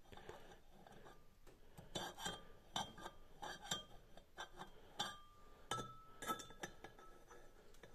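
Steel vernier caliper jaws clinking and scraping against the bore of a steel Zetor cylinder liner as its diameter is measured: about a dozen light metallic clicks, some with a brief ring.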